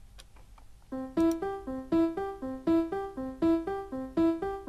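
Ableton's Grand Piano instrument playing a chord broken up by the Arpeggiator into single notes, C–E–G repeating in a steady rhythm. It starts about a second in, after a few faint clicks.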